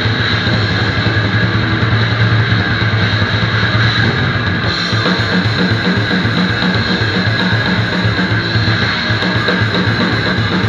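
Live grindcore band playing loud, heavily distorted electric guitar over a drum kit. About four and a half seconds in, the riff changes to a choppier, rapidly pulsing rhythm.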